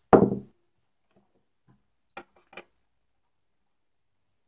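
Metal vape mod parts handled and set down: a short loud sound just after the start, then two light clicks about two seconds in.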